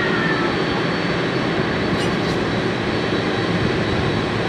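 Japan Airlines Boeing 767-300ER's jet engines running steadily at taxi power as the airliner rolls along the taxiway.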